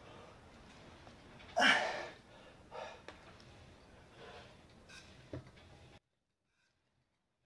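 A man's heavy, effortful breathing during seated rows: a loud breath about one and a half seconds in, then quieter breaths every second or so. A short knock comes near the end, and the sound cuts off suddenly about six seconds in.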